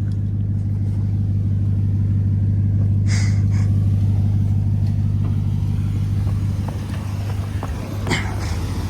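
Full-size pickup truck engine running steadily at low revs, a deep even rumble, with two brief hissing scrapes about three seconds in and again near the end.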